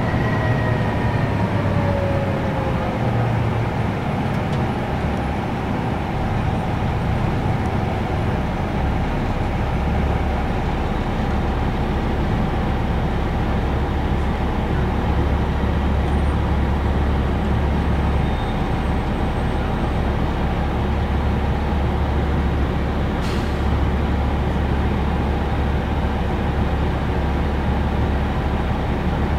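Inside the cabin of a 1992 Neoplan AN340/3 bus with a Detroit Diesel Series 60 engine: a whine falls in pitch at the start as the bus slows, then the diesel settles into a steady low idle drone while the bus stands at a light.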